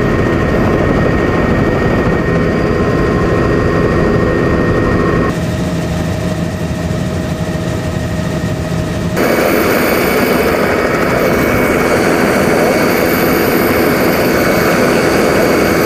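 Steady aircraft engine and wind noise, broken by two abrupt cuts about five and nine seconds in. The last part, louder and fuller, is cabin noise inside the jump helicopter.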